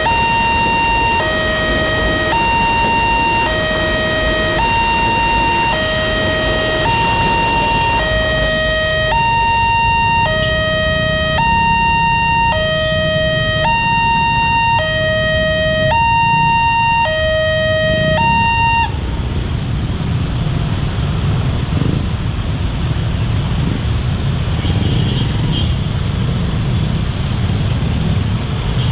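Railway level-crossing warning siren sounding an electronic two-tone hi-lo signal, switching between a high and a low tone roughly every three quarters of a second, over a steady low rumble. The siren cuts off suddenly about two-thirds of the way through, and the rumble carries on.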